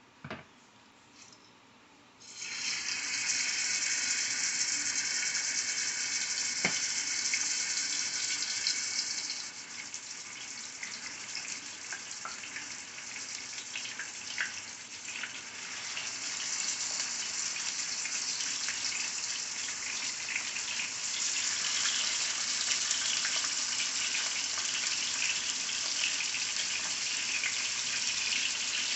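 Seasoned chicken pieces sizzling in hot oil in a skillet as they are browned, the sizzle starting suddenly about two seconds in and swelling again later as more pieces go into the pan.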